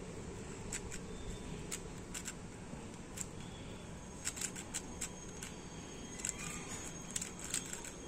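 Plastic clicking of a 4x4 Rubik's cube's layers being turned by hand: irregular quick clicks, coming in thicker runs in the second half, over a steady low background noise.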